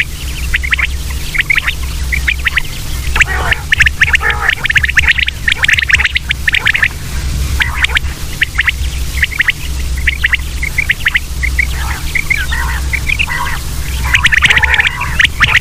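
Common quail calling: repeated runs of short, high, clipped notes that come in thick bursts, over a steady low hum.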